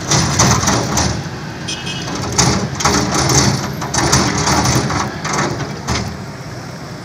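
Hydraulic excavator running as it works its bucket, heard as a loud, uneven rumbling noise that surges and falls every second or so.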